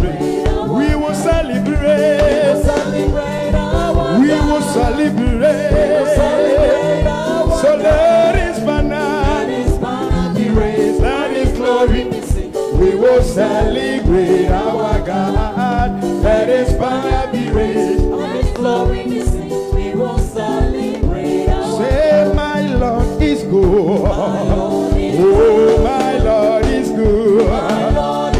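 Gospel praise music: singing over a band with a fast, steady drum beat.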